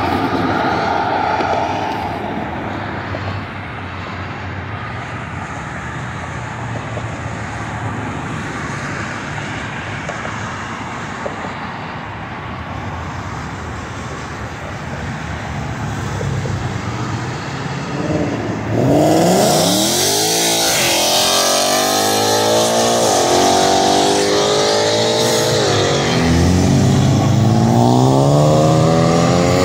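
A car engine accelerating hard: from about two-thirds of the way in the revs climb, drop back and climb again about four times as it shifts up through the gears. Before that, a steady rumble of idling engines and traffic.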